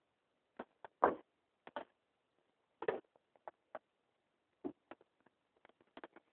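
Kittens playing: a scatter of soft, short knocks and taps at uneven intervals, about fifteen in all, the loudest about a second in and another near the middle.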